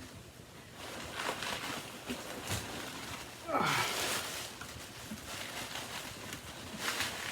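Rustling, scraping and clicking of packing material and cardboard as a parcel is cut open and unwrapped, with a short falling squeak about three and a half seconds in.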